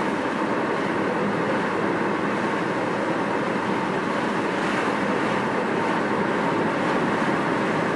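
Steady road noise inside a moving car's cabin: tyres running on wet pavement.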